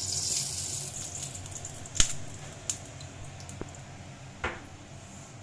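Cooking oil heating in a kadhai on a gas stove: a faint sizzle that fades over the first second, then a few sharp clicks, the loudest about two seconds in.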